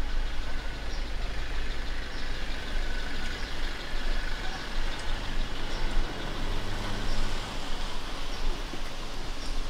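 City traffic on a rain-wet street: cars passing with a steady hiss of tyres on wet road and the low rumble of engines.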